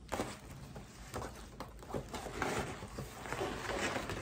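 Paper gift bag and tissue paper rustling and crinkling as they are handled, in irregular rustles with a few light knocks.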